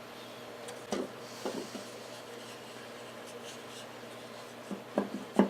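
Half-inch MDF table saw insert being handled on the saw: a few light knocks and scrapes, two about a second in and a small cluster near the end, the last one the loudest, over a steady faint hum.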